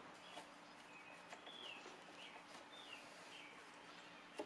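Near silence with faint bird chirps: short high notes, some falling and some rising, about every half second. A few faint clicks and a low steady hum sit underneath, with one louder click near the end.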